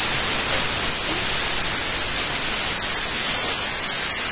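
Steady, loud hiss of recording static with no distinct rustles or taps standing out of it.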